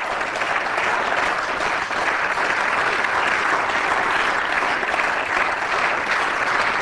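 Members of parliament applauding: many people clapping steadily, the applause swelling in the first second and then holding.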